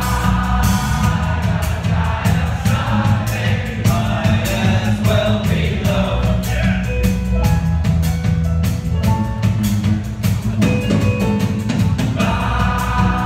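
Live band playing a song: steady drum beat and strong bass under guitars, with singing near the start and again near the end.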